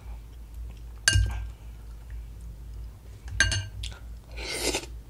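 Metal fork clinking against a glass bowl of sauce twice, about a second in and again past three seconds, each strike ringing briefly. Near the end, a short noisy mouth sound as a sauce-coated Brussels sprout is bitten.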